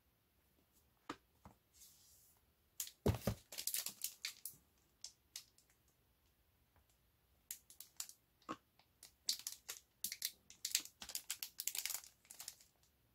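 Plastic shrink-wrap on a box of 5.25-inch floppy disks crinkling as the box is handled. The crackling comes in two spells, a short one about three seconds in and a longer one in the last four seconds, with a few single clicks between.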